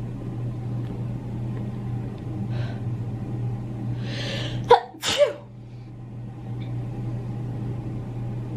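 A woman draws a hissing breath and sneezes sharply about halfway through, followed at once by a second, shorter voiced burst that falls in pitch. A steady low hum runs underneath.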